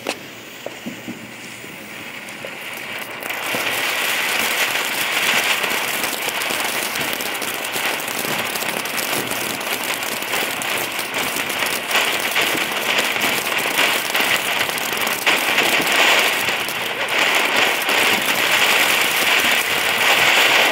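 Ground fountain firework: its lit fuse fizzes quietly for about three seconds, then the fountain sprays with a loud, steady hiss and dense crackling that stops abruptly at the end.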